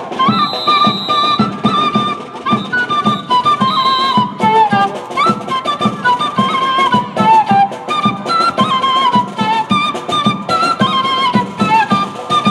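Andean carnival music: flutes playing a folk melody over a steady drumbeat of about two to three strokes a second.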